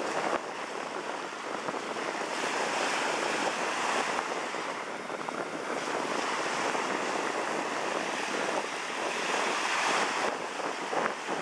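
Small waves breaking at the shoreline and washing up the sand: a steady rushing hiss of surf that swells and eases every few seconds.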